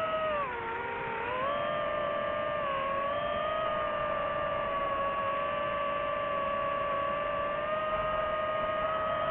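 DJI FPV drone's motors and propellers whining in flight. The pitch dips about half a second in, climbs back a second later and then holds steady.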